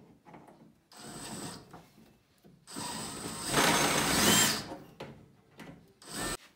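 Cordless drill backing out the cooktop's retaining screws in three runs: a short one about a second in, a longer, louder one from about three to four and a half seconds whose motor whine rises near its end, and a brief burst near the end.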